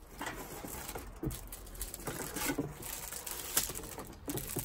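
Rustling and light knocking of cardboard packaging and metal tiller parts being handled and pulled out of a cardboard carton, with one sharp click about three and a half seconds in.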